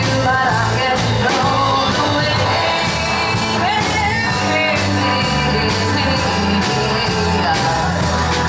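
Live rock band playing: a woman sings lead over her strummed acoustic guitar, backed by electric guitar, bass and drums with steady cymbal strokes.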